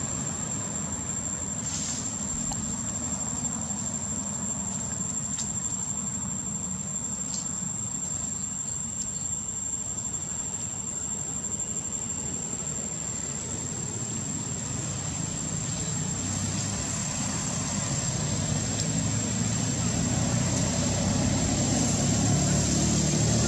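Steady outdoor background noise: a low rumble with a constant high-pitched whine, growing louder over the last several seconds.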